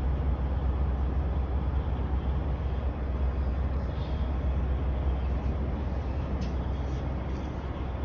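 Steady low rumble of an idling diesel truck engine, with a few faint clicks of handling near the end.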